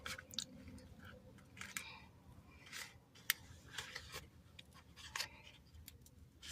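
Faint, scattered clicks and short crinkling rustles of lip gloss packaging being handled and worked open with difficulty.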